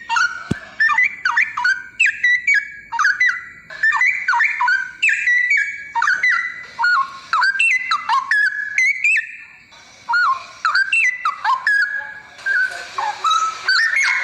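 Straw-headed bulbul (cucak rowo) singing: rapid, loud runs of liquid whistled notes that glide up and down, with a brief lull about ten seconds in.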